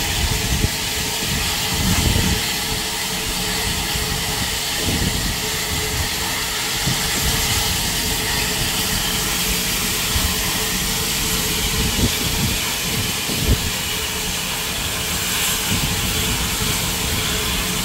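Steam locomotive (Bulleid Battle of Britain class light Pacific 34067 Tangmere) hissing steam steadily while standing ready to depart, with a few low bumps now and then.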